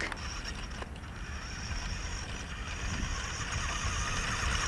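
Small electric motor and gears of a toy-grade RC crawler whining steadily as it drives, growing louder toward the end, over a low wind rumble on the microphone.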